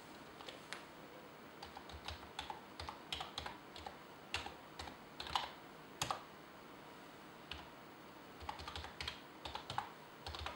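Typing on a computer keyboard: irregular runs of keystrokes with short pauses between them, as login details are entered.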